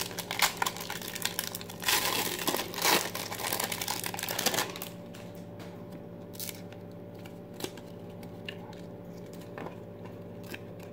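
Trading-card pack wrapper being torn open and crinkled for about five seconds, then a stack of cards being peeled apart and thumbed through with faint clicks; the cards are sticking together.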